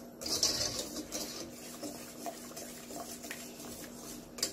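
Wire whisk stirring a thick cream sauce in a stainless-steel pot: a continuous scratchy rubbing of the wires against the pot and through the sauce, louder for about the first second.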